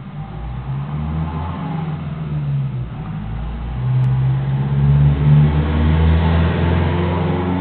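Stepper motors driven by a 3-axis USB CNC controller, running with a steady hum whose pitch changes in steps as the axes move; it grows louder about four seconds in.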